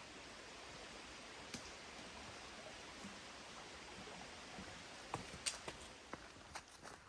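A hiker's footsteps on a forest trail, a few scattered steps from about five seconds in, over a faint steady hiss.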